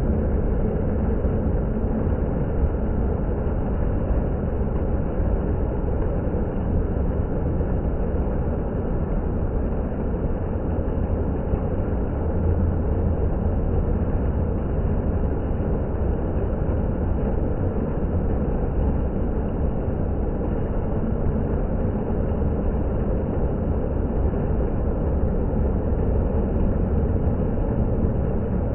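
Water fountain splashing: a steady, unbroken rush of falling water.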